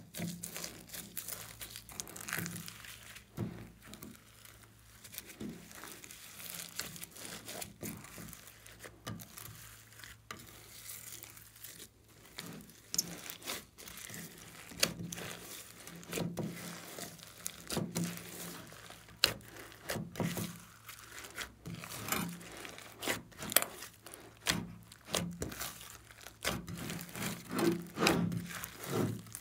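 Glossy slime mixed with foam beads being kneaded, stretched and pressed by hand, giving many irregular small clicks and crackles with sticky squishing.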